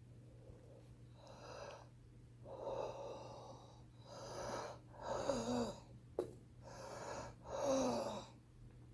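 A heavy smoker's wheezy breathing: about six raspy breaths in and out, two of them ending in a falling whistling wheeze. A single sharp click comes about six seconds in.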